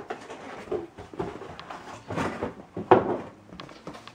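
Packaging handled on a desk as a Samsung Series 9 laptop is taken out of its sleeve: irregular scraping and rustling with a few sharp knocks, the loudest about three seconds in.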